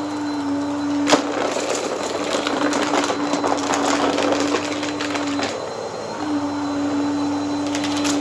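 Upright vacuum cleaner running with a steady motor hum while its brushroll crunches and crackles through dry debris, with a sharp click about a second in; the hum drops out briefly a little past the middle.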